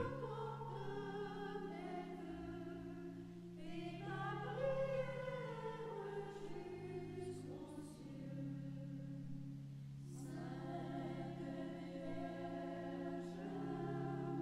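Background choral music: a choir singing slow, sustained chords, with new phrases beginning about four and ten seconds in.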